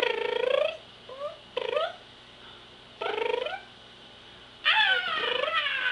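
A baby making weird, high squealing calls, pterodactyl-like. There are about five of them: one at the start, two short yelps around a second and a half in, one near the three-second mark, and a louder, longer screech near the end that slides down in pitch.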